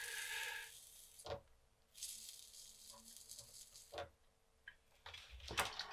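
Faint hiss of flux-cored solder sizzling as it melts on a soldering iron tip on a circuit-board connector lug, with a few light clicks.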